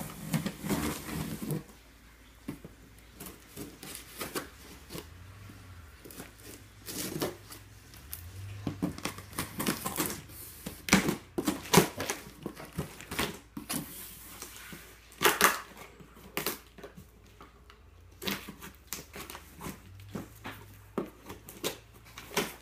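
A blade running along the packing tape of a large cardboard box, then the cardboard flaps being pulled open and handled: irregular scrapes, rustles and taps.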